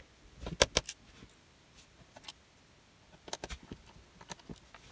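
Short sharp clicks and taps as hands handle a plastic netbook case and its small parts during reassembly: two clicks about half a second in, and a quick run of small ticks about three and a half seconds in.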